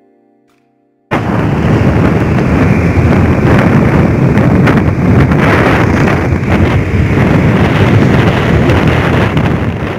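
Wind blasting across the microphone of a moving motorcycle: a loud, steady roar mixed with the bike's running and road noise. It starts abruptly about a second in.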